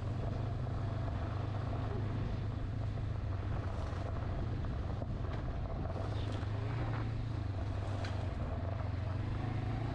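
Honda CB500X's parallel-twin engine running steadily as the motorcycle rides at an even pace over a gravel trail, with a few faint ticks here and there.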